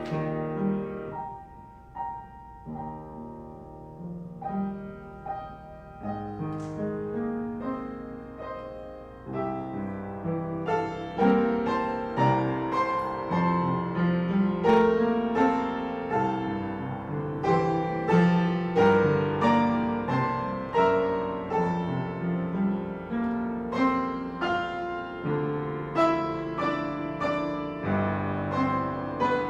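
Solo piano playing a slow, chordal piece, quiet at first and growing fuller and louder about ten seconds in.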